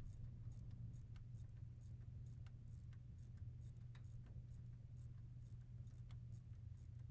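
Faint, irregular clicking of a ratcheting wrench as it tightens the brake master cylinder's retaining nuts, over a low steady hum.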